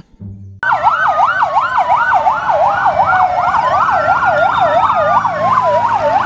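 Fire engine sirens: a fast yelp sweeping up and down about three times a second, overlaid by a slower wail that rises and falls. They start suddenly just under a second in, after a brief lull.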